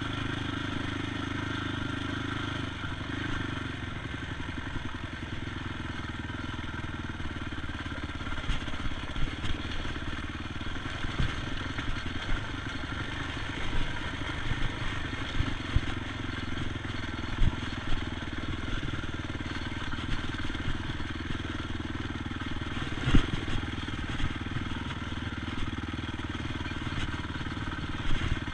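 ATV engine running steadily while under way, with scattered sharp knocks and thumps, the loudest about two-thirds of the way through.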